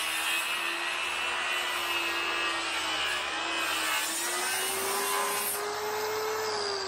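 Handheld circular saw running under load, ripping a long bevel along the edge of a salvaged cypress tabletop: a steady motor whine over the noise of the blade tearing through the wood. The motor's pitch dips and rises again partway through, then starts to fall near the end.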